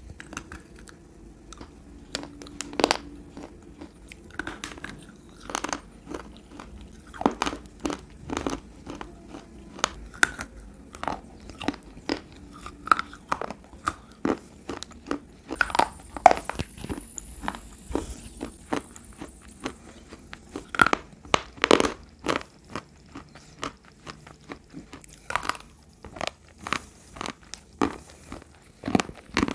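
Close-up biting and chewing of wet edible clay and slate pencils: a run of irregular sharp crunches, several a second, with chewing between the bites.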